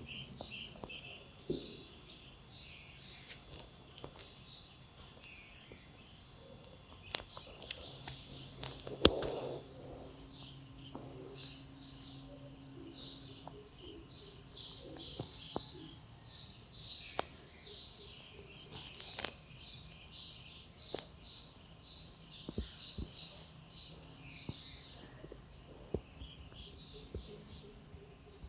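Outdoor ambience: a steady high-pitched insect drone, with many short bird chirps over it and a few faint clicks.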